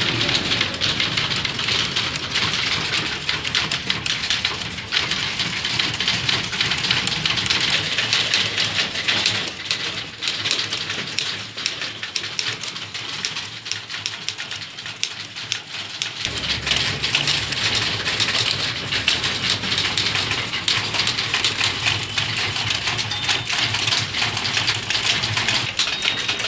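Several typewriters being typed on at once: a dense, continuous clatter of keystrokes and typebar strikes.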